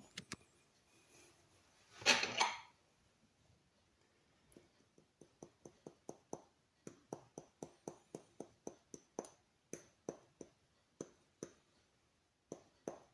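Metal tablespoon tapped repeatedly against the rim of a container while measuring out turmeric powder: a run of light clinks, about two a second, after a brief rustle of handling about two seconds in.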